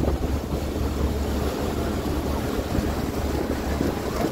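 A tour boat's engine running steadily under way, a low drone, with wind on the microphone.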